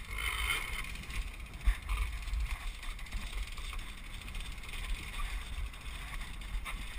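Wind buffeting the camera microphone in a steady low rumble, with a few faint knocks and clicks from the climber's hands and gear against the mast.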